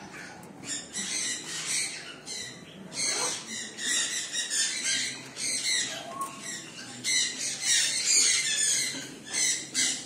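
Parrots squawking: a string of harsh, shrill screeches in quick succession, loudest in the second half.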